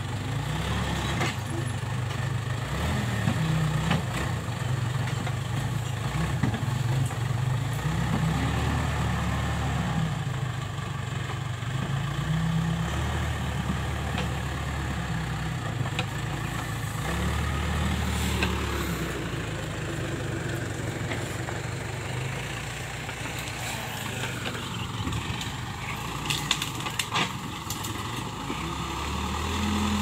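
Case 580K backhoe loader's four-cylinder diesel engine running under load, its revs rising and falling every few seconds as the machine works its front loader bucket and moves over the dirt. A few sharp knocks come near the end.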